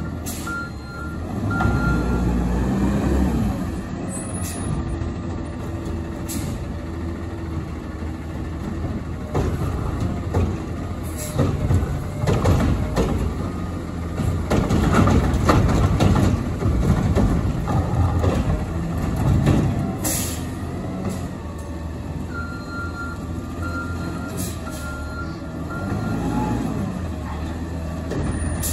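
McNeilus Meridian front-loader garbage truck on an Autocar ACX chassis running and maneuvering, its diesel engine rising and falling as it works the front loading arms. There is a louder, clattering stretch in the middle, two short air hisses, and intermittent beeping near the start and again about three quarters of the way through.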